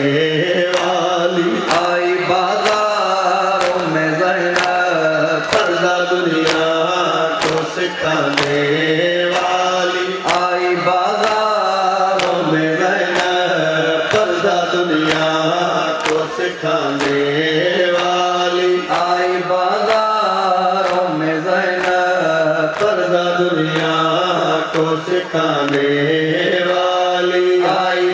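Men chanting a noha in unison, with sharp rhythmic chest-beating (matam) strikes about every three-quarters of a second.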